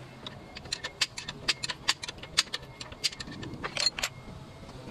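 Hand tools clicking and clinking against metal bolts and brackets, a dozen or so sharp, irregular metallic clicks, with the engine switched off.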